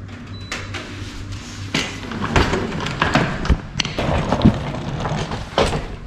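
A string of irregular thumps and knocks, roughly one a second, over a steady low hum.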